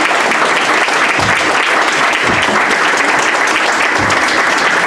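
Audience applauding, a steady, loud clapping that runs without a break.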